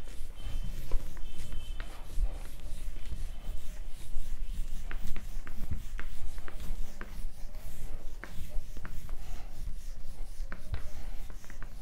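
Handheld whiteboard duster wiping across a whiteboard in repeated rubbing strokes, with scattered light taps and a few short squeaks in the first two seconds.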